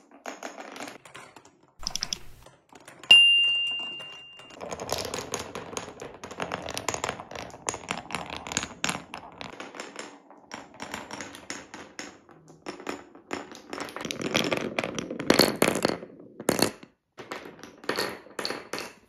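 Several glass marbles rolling and clattering down the channels of a Cuboro beech-wood marble run, with rapid clicks as they knock against each other and the wooden blocks. A sharp, ringing clink about three seconds in is the loudest moment.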